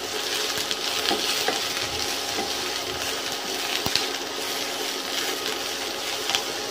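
Sliced onions sizzling steadily in hot oil on low to medium heat while a wooden spatula stirs them, scraping and tapping against the granite-coated pan, with one sharp tap about four seconds in.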